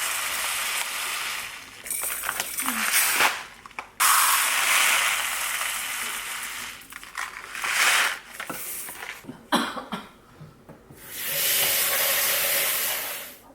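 Running water from a kitchen tap, turned on and off in several spurts of one to three seconds, as Thai glutinous rice is set to soak.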